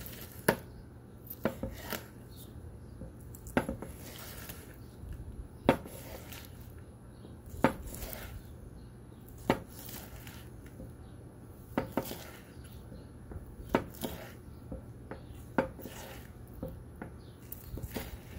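Large knife slicing a grilled steak on a wooden cutting board, the blade knocking sharply on the board at the end of each slice, about every two seconds.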